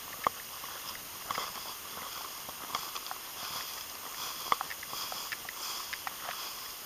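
Footsteps crunching and swishing through dry, tall grass, with irregular crackles from the stalks over a steady hiss.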